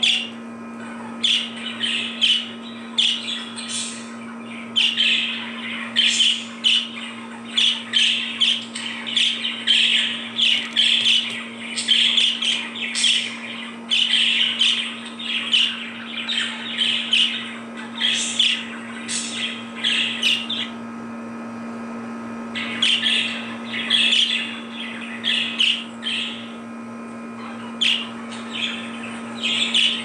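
Budgerigars chirping and warbling in a fast, busy stream of short chirps, with a brief pause about two-thirds of the way through. A steady low hum sits underneath.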